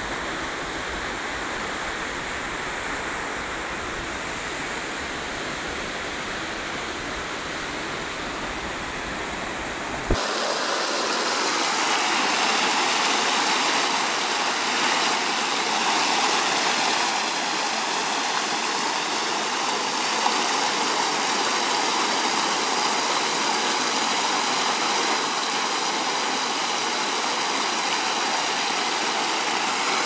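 Steady rush of a mountain stream and waterfall pouring over rocks. About ten seconds in it cuts abruptly with a click to a closer, louder and brighter rush of white water.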